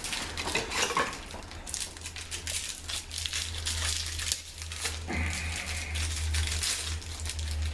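Packaging of a new door knob set crinkling and rustling as the screws are taken out of it, over a steady low hum.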